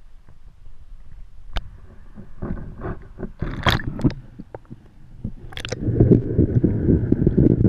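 Sound picked up by a GoPro in its waterproof housing under water: scattered knocks, clicks and scrapes against the housing, then about six seconds in a denser, louder, muffled crackling rumble of water moving around the camera.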